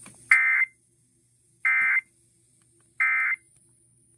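Emergency Alert System SAME digital data tones: three short buzzing bursts about a second apart, the end-of-message signal that closes a National Weather Service severe thunderstorm warning.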